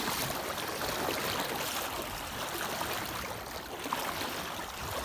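Water sloshing and splashing around a person's legs as he wades barefoot through a shallow, clear river, a steady rushing noise.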